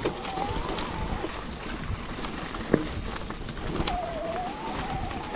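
Mountain bike riding down a wet, muddy forest trail: steady tyre rumble and rattling with wind on the microphone, a sharp knock a little under three seconds in, and a faint wavering whine twice.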